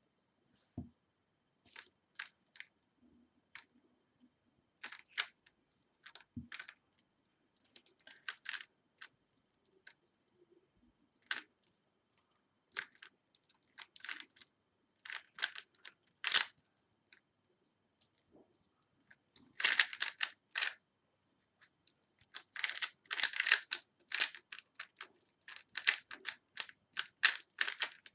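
A 3x3 Rubik's cube being turned by hand during a timed solve: the plastic layers click and clack in quick flurries broken by short pauses, busiest in the second half.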